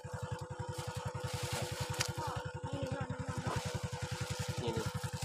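A vehicle engine idling steadily, with an even rapid throb of about a dozen beats a second and a steady hum above it.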